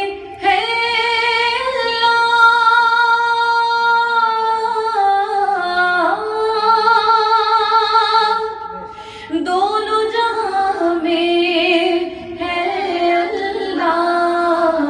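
A woman singing a devotional hamd into a microphone without accompaniment, in long held notes that glide and waver, pausing briefly for breath about nine and twelve seconds in.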